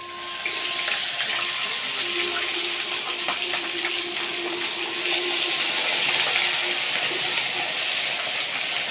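Two whole salted tilapia (mojarras) frying in hot oil in a frying pan: a steady sizzle as the fish are lowered in one after the other.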